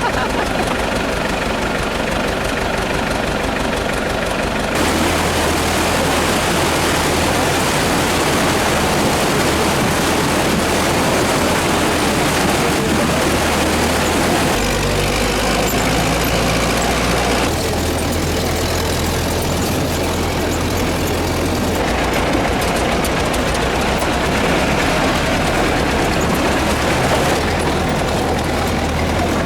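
Motor vehicle engine running with heavy rumbling noise; the sound changes abruptly several times.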